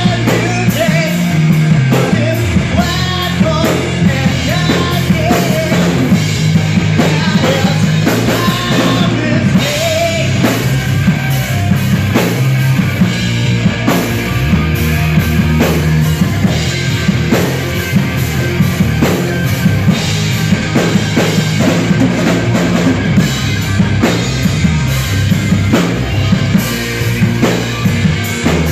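Live rock band playing at a steady loud level: electric guitars through Marshall amps, electric bass and a drum kit, with a singer's voice over the top.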